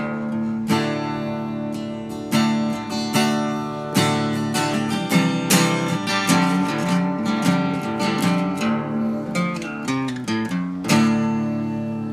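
Background music played on acoustic guitar, picked and strummed, with a last chord about eleven seconds in that is left ringing.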